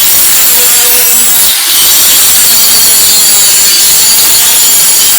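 Angle grinder grinding a weld-prep bevel onto the end of a 3-inch solid bar: loud, steady grinding with a brief dip about one and a half seconds in.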